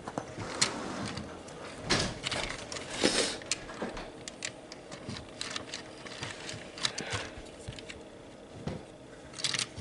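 Small plastic HO scale model train cars being handled, with scattered light clicks, taps and rustling at irregular intervals.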